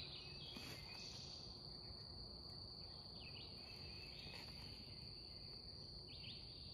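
Faint, steady, high-pitched drone of insects in the woods, with a few faint clicks.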